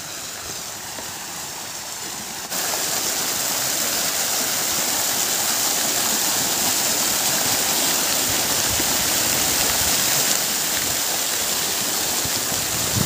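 Garden fountain jets spraying and splashing down into an ornamental pool: a steady rush of falling water, which jumps louder about two and a half seconds in.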